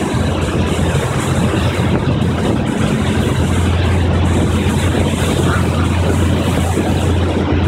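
Motorboat engine running steadily under way, with a deep hum over a constant rush of water and wind.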